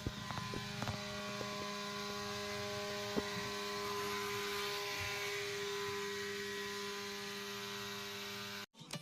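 Steady electrical hum with several steady tones, with a few light clicks in the first second and a half; it cuts off suddenly near the end.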